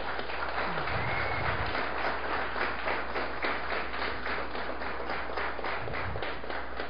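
Audience applauding: a steady patter of many hands clapping that swells about a second in and thins out near the end.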